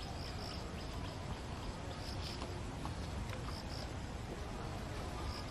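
Insects chirping outdoors in short, high-pitched bursts that come back every second or two, over a steady low rumble.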